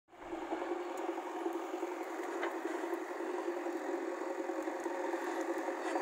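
JCB backhoe loader's diesel engine running steadily while the rear bucket digs into soil, with a few faint clicks.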